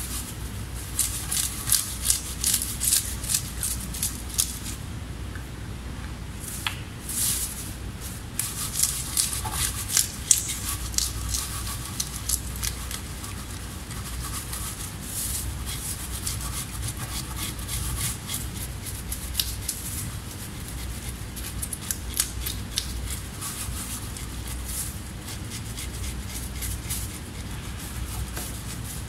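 Scales being scraped off a black tilapia inside a plastic bag: quick rasping strokes of the blade against the skin, with the bag crinkling. The strokes are busiest for about the first twelve seconds, then come more sparsely.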